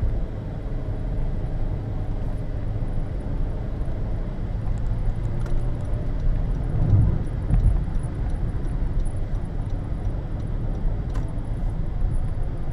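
Cabin noise of a Honda Odyssey hybrid minivan cruising on an expressway: a steady low rumble of road and tyre noise, swelling briefly about seven seconds in.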